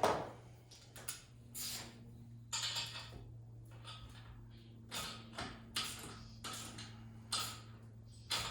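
Ratchet and socket being worked to tighten nuts on a bicycle engine mount bracket: short bursts of ratchet clicking, roughly one or two a second and unevenly spaced, over a steady low hum.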